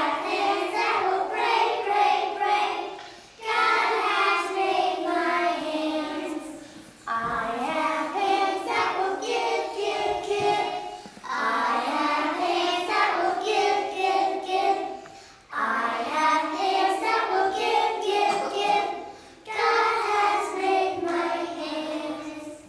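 A group of preschool children singing a song together, in sung lines of about four seconds each with short breaths between, ending near the end.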